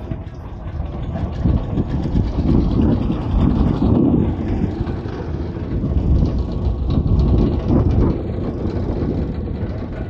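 Construction machinery engine running steadily, a continuous low rumble.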